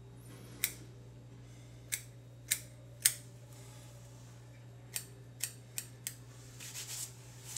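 Small scissors snipping beard hair: about eight sharp, separate snips at an uneven pace, with softer rustling near the end.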